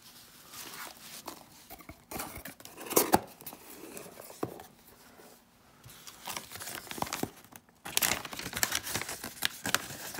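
Foam packing peanuts and a cardboard box being handled, with scattered light knocks and rustles. From about eight seconds in, a folded paper insert crinkles steadily as it is opened out.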